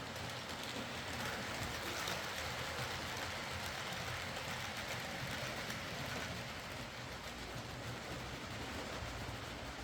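Hornby Class A4 Mallard OO gauge model locomotive running on track: a steady whirr of the motor and gears with the hiss and rumble of wheels on rail, swelling slightly and then easing.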